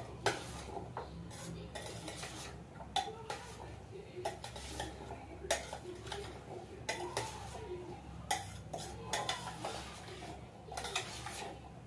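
Metal spoon stirring boiled chickpeas and spices in a steel pot, with irregular clinks and scrapes of the spoon against the pot's sides.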